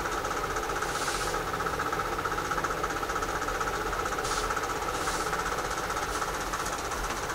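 Steady machine hum with a fast, fine flutter, and a few short rustles of cotton fabric strips being smoothed by hand on a cutting mat, about a second in and again around four to five seconds in.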